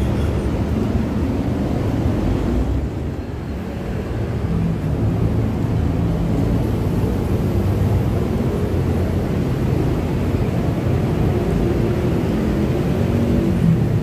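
Low drone of heavy road traffic on the bridge overhead, with the engines of big trucks and buses passing. It dips briefly about three seconds in, then swells again.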